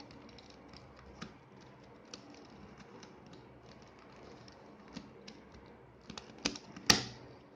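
Plastic pieces of a Yuxin Little Magic speedcube clicking as they are fitted back into the cube, a run of light irregular clicks with a couple of sharper snaps near the end.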